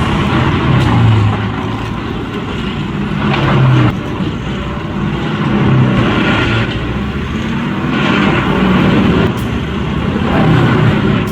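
A large machine's engine running loud and rough, its load and loudness swelling and easing every couple of seconds.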